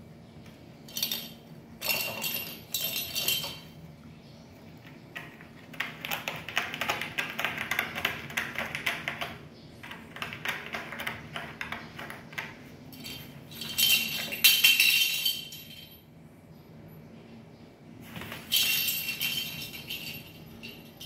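Small toy ball batted by kittens and rolling over a corrugated cardboard scratcher, jingling and rattling in repeated bursts of a second or more, the loudest about two thirds of the way through.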